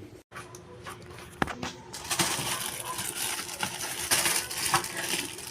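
Plastic being handled: a sharp click about a second and a half in, then a run of rustling and small clicks.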